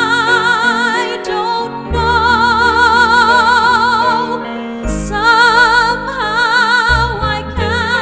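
Background music: a high voice holds long notes with wide vibrato in an operatic style over sustained low chords, pausing briefly twice.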